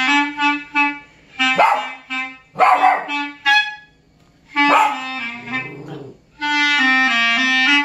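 Clarinet playing short phrases while small dogs bark and yap at it in sharp outbursts, three of them in the first five seconds. The clarinet then holds a long note near the end.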